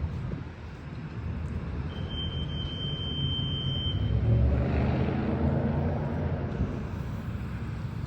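A low motor rumble that swells about four seconds in and eases off again, with a thin, steady high tone for about two seconds in the middle.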